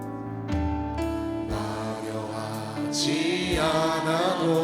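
Worship music: a Korean praise song sung to instrumental accompaniment, with the voices holding long notes between lines.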